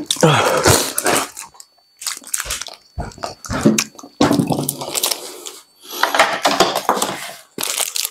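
A man panting and huffing in a run of loud, heavy breaths through an open mouth, with pained groans between them, his mouth burning from a super-hot chili chip.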